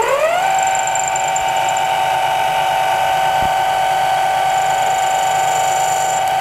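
Mini lathe spun up to high speed, its motor and spindle whine rising in pitch and settling about half a second in, then running at a steady high pitch with the aluminium stock turning.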